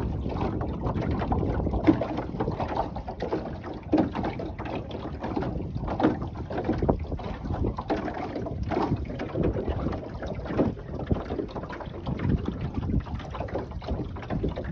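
Wind buffeting the microphone and water splashing against the hull of an Oughtred Penny Fee wooden sailboat under way in gusty wind. The noise is steady and low, with irregular slaps and gusts throughout.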